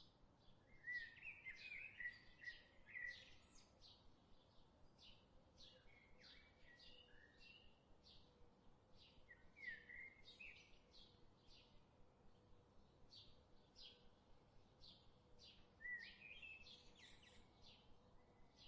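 Wild birds singing faintly: one bird gives a steady series of short, high chirps, and another breaks in four times with brief warbling phrases.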